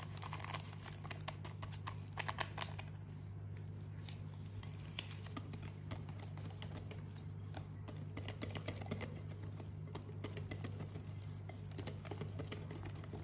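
Wire whisk stirring flour into cake batter in a glass bowl: quick, irregular light clicking and tapping of the wires against the glass, busiest in the first few seconds, over a low steady hum.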